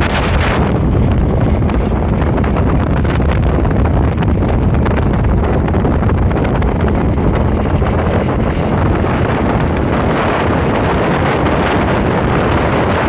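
Steady wind buffeting on the microphone of a moving recorder, with vehicle and road rumble underneath.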